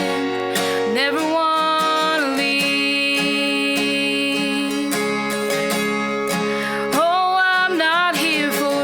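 A song with acoustic guitar and a voice singing long held notes that slide between pitches.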